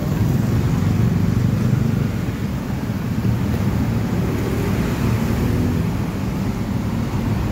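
Heavy, slow-moving city traffic: a steady low engine drone from a large intercity coach crawling past, with motorcycle engines alongside.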